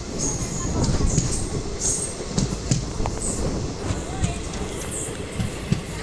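Passenger train running along the track, heard from the side of the moving coach: a steady rumble of wheels on rail, broken by frequent short, high-pitched metal squeals and occasional clicks.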